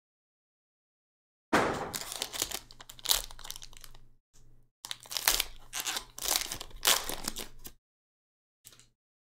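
Foil wrapper of a 2022 Playbook Football trading-card pack being torn open and crinkled by hand. It comes in two long stretches of crackling and tearing starting about a second and a half in, then one short crinkle near the end.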